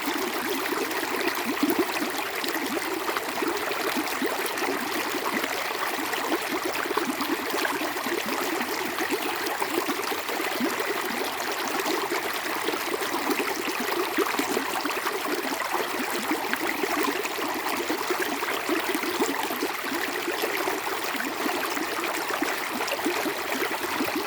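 Flowing stream water running steadily, a continuous burbling rush with no breaks.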